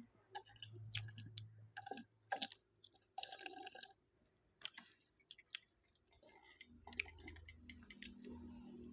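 A person chewing food: soft, scattered mouth clicks and smacks at a low level.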